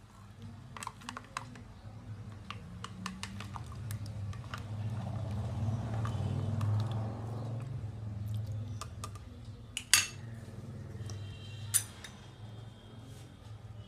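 Plastic ladle stirring buttermilk in a glass jug, with many small clicks and knocks against the glass and a swishing of the liquid that swells in the middle. Two sharper, louder clinks come later, the second followed by a short ringing.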